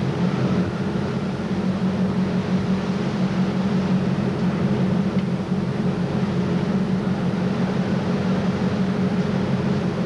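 A Voith tug's engines running steadily under way: a constant low hum with an even hiss of noise over it.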